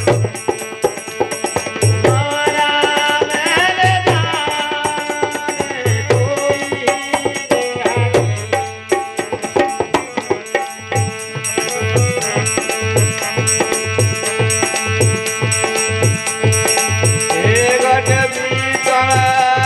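Harmonium playing a sustained melody with a dholak beating out the rhythm, the drum strokes settling into a steady beat of about two a second in the second half. This is accompaniment to a Hindi devotional folk song (bhajan).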